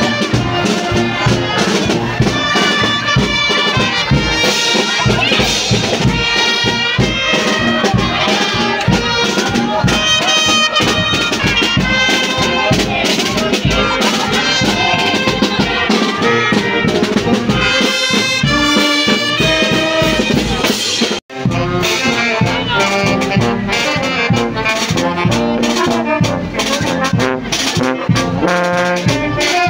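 Brass band playing a march, with trumpets, trombones and drums. The sound drops out for an instant about two-thirds of the way through, then the band carries on.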